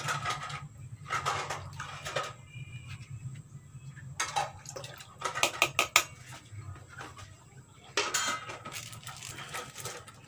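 Kitchenware clatter: a plastic bowl knocking and scraping against a wok as ground spice paste is emptied into the water, in several short clusters of clicks, loudest around the middle. Near the end a metal spatula clinks in the pan.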